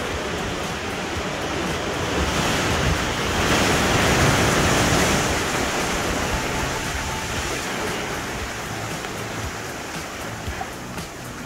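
Pacific surf washing in through a rock arch into a sea cave and over boulders. One surge builds about two seconds in, peaks around four to five seconds, then slowly recedes.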